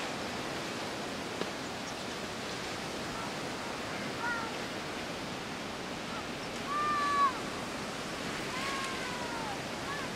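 Steady wind rushing through eucalyptus trees and dry grass. A few short, high calls that rise and fall in pitch sound over it, the loudest about seven seconds in.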